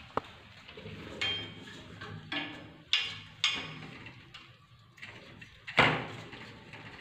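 Baby monkeys clambering on a window frame and its metal grille, making a series of about six sharp knocks and rattles. The loudest comes near the end.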